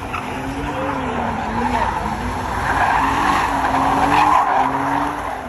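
Car spinning its wheels in a burnout: the engine revs up and down over a continuous screech of tyres, loudest about three to four seconds in.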